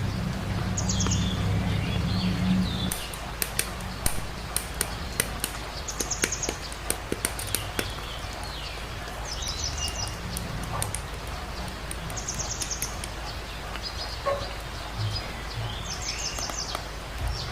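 A bird chirping a short high phrase over and over, every two or three seconds. A quick run of sharp clicks from plastic model-kit work comes in about three seconds in and fades out after a few seconds. A low hum stops about three seconds in.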